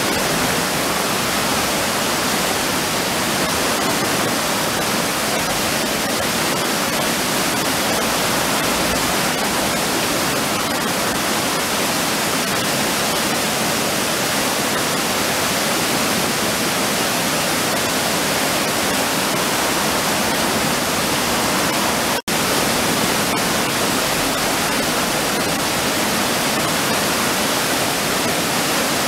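River water pouring steadily over a low weir, a constant rushing sound, with a momentary dropout about three-quarters of the way through.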